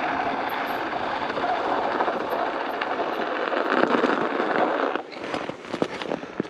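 Studded bicycle tyres rolling over ice and packed snow: a steady, dense clattering of the studs on the road. About five seconds in it drops away, leaving a few sharp clicks.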